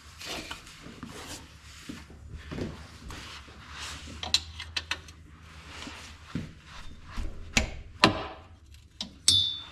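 Hand tools handled against metal: scraping, small clicks and two sharper knocks past the middle, ending in a short metallic ring.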